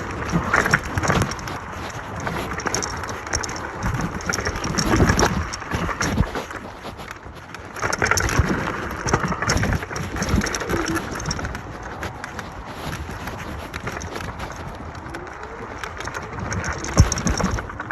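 eX-Trail1000 electric scooter riding off-road: an uneven rushing and rumbling noise, with surges and low bumps, from wind on the microphone and tyres on rough ground.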